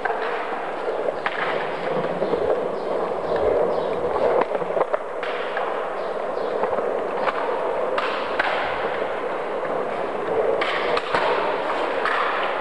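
Skateboard wheels rolling on a smooth tiled floor: a steady rolling rumble broken by frequent short clicks and knocks.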